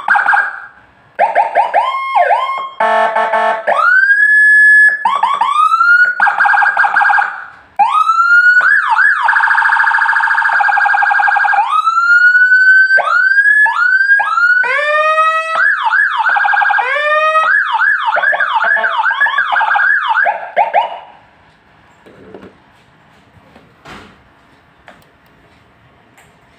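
SA5200 electronic siren module sounding through a loudspeaker and cycling through several siren tones: fast yelps, rising wails, a held warbling high tone and rapid repeated sweeps. It stops suddenly about 21 seconds in, leaving only a few faint clicks.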